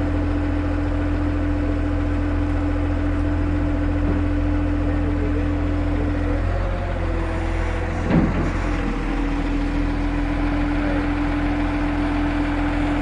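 Heavy truck engine idling steadily, with its note shifting briefly near the middle and a short, sharper sound about eight seconds in.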